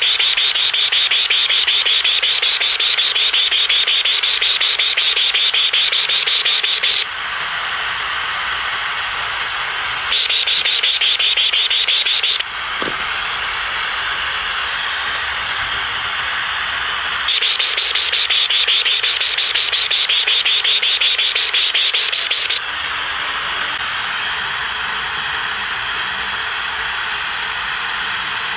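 Static hiss from a portable AM/FM radio used with a satellite LNB as a homemade metal detector. A loud warbling whine rides over the hiss for about seven seconds, drops out, comes back for a couple of seconds around ten seconds in, and again for about five seconds from seventeen seconds in: the detector responding to metal held near the LNB. A single click about thirteen seconds in.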